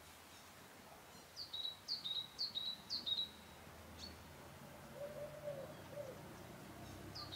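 A small songbird singing a phrase of about five quick repeated notes, each sliding down into a short held note, then one more note about a second later. A faint, lower, wavering call follows about five seconds in.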